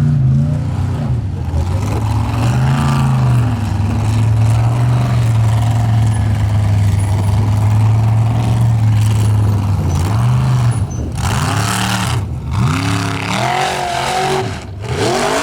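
Formula offroad race car's engine running hard at high revs, holding steady for several seconds. Near the end the throttle is blipped again and again, the revs falling and rising, with noisy bursts between them.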